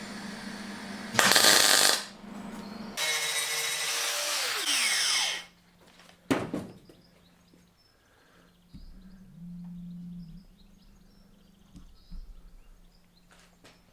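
A short, loud burst of plug welding on the Land Rover vent hinge tag. Then a hand-held power tool runs for about two seconds and winds down, and another sharp short burst follows about a second later.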